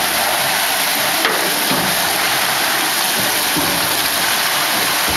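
Steady, loud, hiss-like machinery noise from plaster panel making equipment, even in level and without any rhythm.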